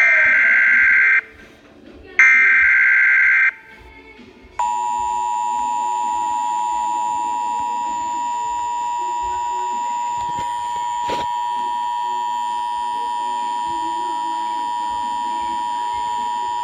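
Emergency Alert System transmission: two bursts of SAME header data, a harsh digital screech each a little over a second long, about a second apart. About a second and a half later the steady EAS attention tone starts and holds unbroken.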